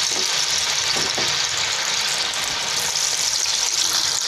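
Raw, spice- and arrowroot-coated potato sticks deep-frying in hot oil in a pan, just put in: a loud, steady sizzle of the oil bubbling hard around them.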